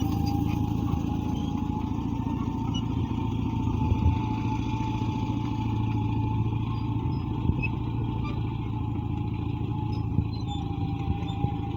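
Caterpillar D8 bulldozer's diesel engine running steadily, with a thin steady whine above the engine drone and a few short knocks, about four, seven and ten seconds in.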